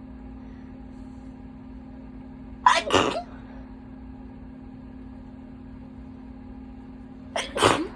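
A person sneezing twice, wet sneezes about five seconds apart, each a brief build-up and a sharp burst, over a steady low hum.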